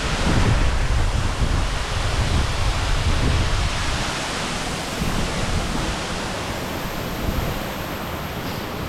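Steady rushing of a heavily flowing waterfall, with wind buffeting the microphone as a gusty low rumble that eases after about four seconds.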